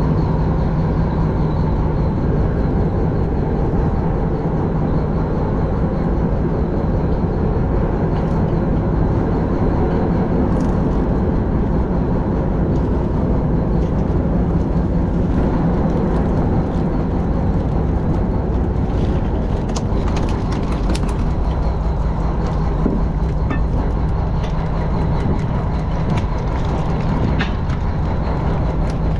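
Fishing boat's engine running steadily with a low rumble, with scattered clicks and knocks in the second half.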